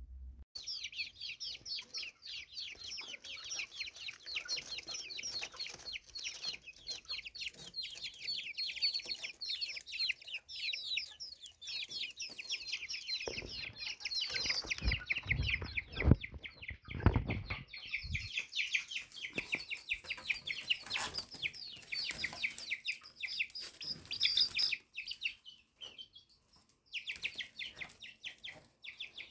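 Birds chirping rapidly and without pause, high-pitched, with a few dull low thumps around the middle.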